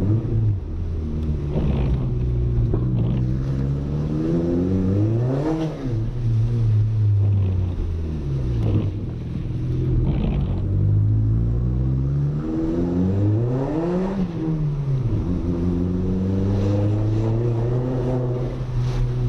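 Audi A3 1.8T's turbocharged four-cylinder engine under acceleration. Twice the revs climb steadily to a peak, about five and fourteen seconds in, and fall away sharply as the throttle is lifted, with another dip and recovery in between.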